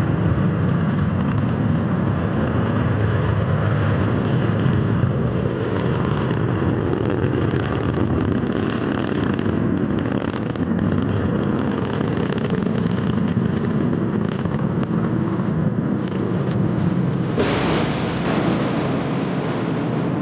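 Rocket launch: a steady, loud, deep rumble of the rocket engines. About seventeen seconds in it suddenly turns brighter and hissier and stays that way.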